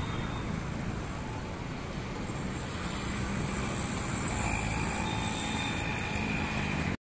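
Steady rumbling noise of road traffic, heaviest in the low end, with a faint higher whine joining about four seconds in; it cuts off abruptly near the end.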